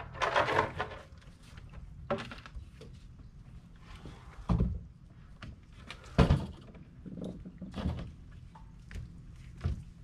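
A series of hollow thumps and knocks from footsteps and gear on a small boat's deck as gear is handled and unloaded, roughly one every second or two, the loudest about six seconds in, over a low steady rumble.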